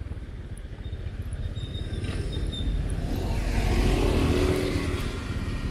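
Ride on the back of a moving motorcycle: wind buffeting the microphone with road and engine noise underneath. It grows louder about halfway through.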